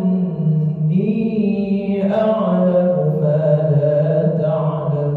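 A male imam's solo voice chanting Quran recitation in drawn-out melodic phrases during night prayer. The notes are held for a second or more and slide between pitches, settling on a low held note in the second half.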